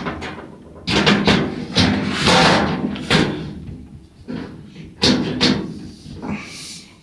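A series of knocks and bangs, about a dozen in all, as flat-pack furniture parts are handled and fitted together.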